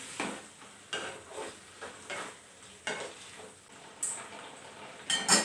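A spoon or ladle stirring boiled, mashed carrot in ghee in a kadai, with irregular clacks and scrapes of the spoon against the pan and a faint sizzle.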